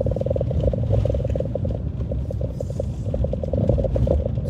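Car cabin noise while driving slowly: a low engine and road rumble with a steady, fast-pulsing mid-pitched buzz over it.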